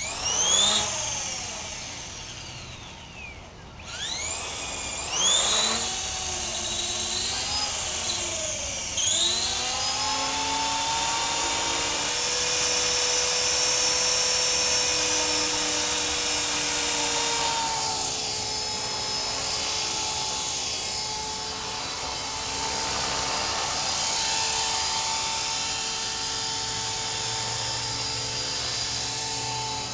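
CopterX 450 SE electric RC helicopter's motor and rotor spooling up in several quick rising whines in the first few seconds, then running at a steady high whine whose pitch wavers slightly.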